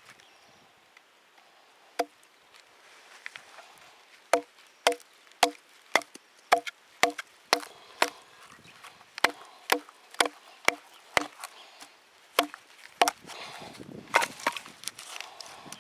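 Wood being chopped with a hand-held blade: a single knock, then a run of sharp, ringing knocks about two a second with short pauses. Near the end comes a rustling, crackling stretch.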